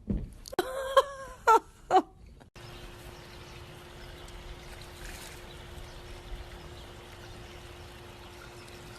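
A pet animal giving a few short, pitched, wavering cries: one longer call, then two brief ones. About two and a half seconds in, the sound cuts to a steady hiss with a faint steady hum.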